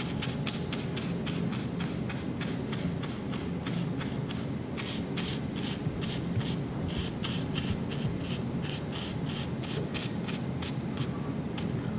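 Paintbrush scratching and dabbing black paint onto a craft pumpkin in quick, short, repeated strokes, several a second.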